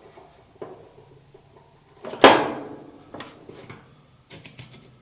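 Dryer belt tensioner arm and its spring being handled during reassembly: a few light clicks and taps, with one sharp, loud clack about two seconds in.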